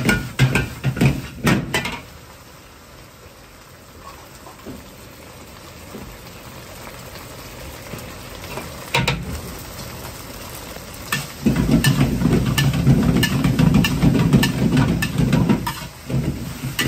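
Fried rice stir-fried in a large carbon-steel wok: a ladle clanks and scrapes against the metal over sizzling. It goes quieter for several seconds in the middle with a single knock. From about eleven seconds in, a loud low rumble joins rapid stirring clatter.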